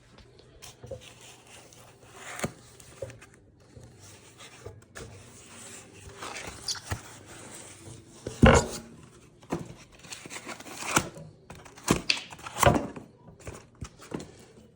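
Packaging rustling and tearing as a boxed steering wheel is unwrapped, with scattered knocks from the box and wheel being handled. The loudest knock comes about eight and a half seconds in.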